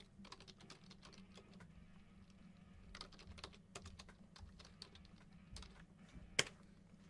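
Quiet, irregular light clicks and taps, clustered a few seconds in, with one sharper, louder click about six and a half seconds in.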